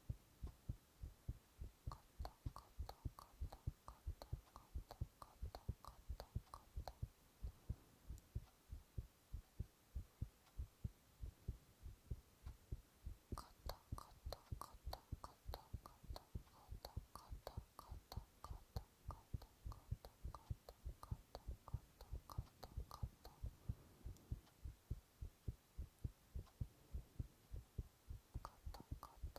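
A man's heartbeat picked up close by a microphone, a steady run of low thumping beats. In two stretches, near the start and through the middle, quick crisp whispered mouth sounds run along with the beats.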